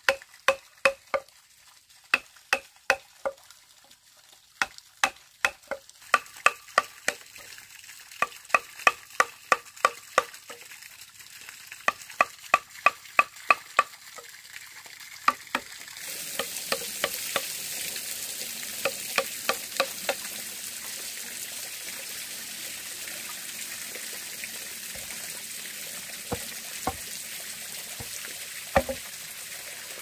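Quick repeated knocks, about two to three a second, as of a utensil striking a cooking pot or board. About halfway in, a steady sizzle of food frying in a pan starts and runs on, with occasional knocks of stirring.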